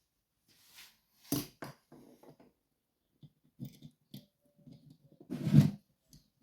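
Handling noise from a lever safe lock and lockpicking tools: a couple of sharp clicks a little over a second in, scattered light knocks, and a louder fuller knock-and-rub near the end.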